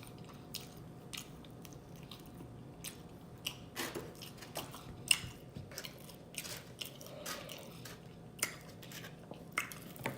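A person chewing pizza close to the microphone, with irregular wet mouth clicks and smacks.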